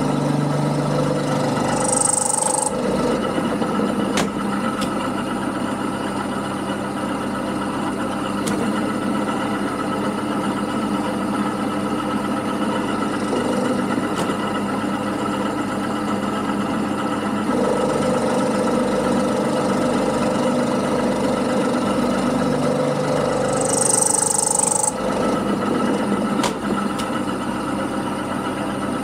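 Milling machine running with a steady motor and gear hum while its end mill side-cuts a metal block, throwing chips at first. Two brief high-pitched bursts stand out, about two seconds in and again near the end.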